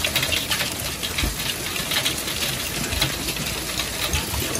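Heavy hail, some stones over an inch across, pelting a garden: a dense, steady clatter of countless small impacts.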